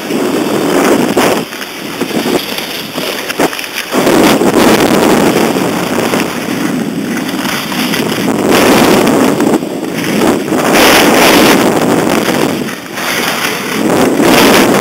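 Loud rushing noise of air buffeting the microphone and skis sliding over snow during a downhill ski run, surging and easing several times.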